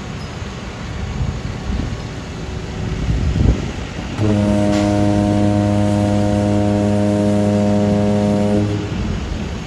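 Street rumble of traffic or machinery, then a long, steady horn blast lasting about four and a half seconds, starting a little under halfway in.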